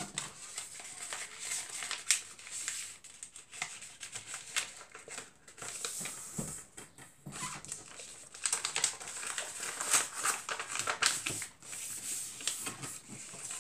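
A sheet of A4 paper rustling and crinkling as it is folded by hand, with irregular short crackles as the creases are pressed down.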